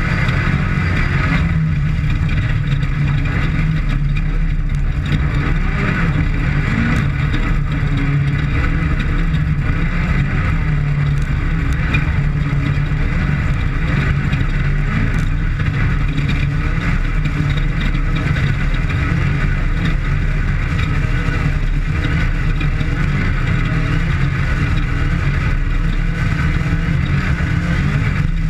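Desert off-road race vehicle at speed on a qualifying lap: the engine runs hard, a loud, steady drone with a deep rumble.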